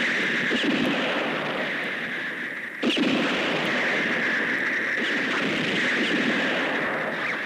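A loud, steady, harsh rushing noise with a sudden jolt about three seconds in, like the distorted soundtrack of old film.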